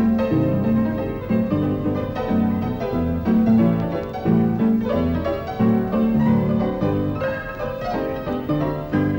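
Piano music, the accompaniment score for a 1920s silent comedy, with chords struck at a lively, even pace.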